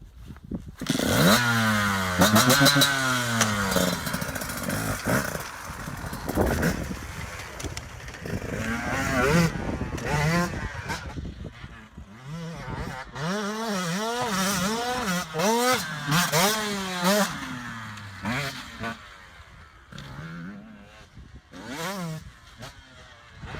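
KTM two-stroke enduro motorcycle being ridden, its engine revving up and dropping back over and over as the throttle is worked through the gears, with quieter stretches in between.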